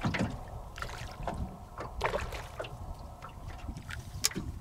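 Water splashing and lapping around a small fishing boat in short, irregular bursts over a steady low rumble, with one sharp click near the end.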